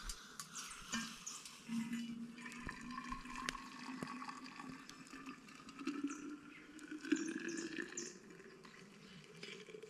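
Hot water being poured from a metal pot into a thermos, with the pitch of the filling rising steadily as the thermos fills.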